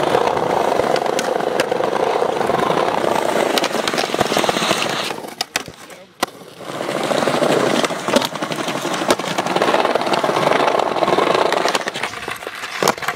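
Skateboard wheels rolling over paving stones, with sharp clacks of the board popping and landing. The rolling drops away for a moment about halfway through, then picks up again.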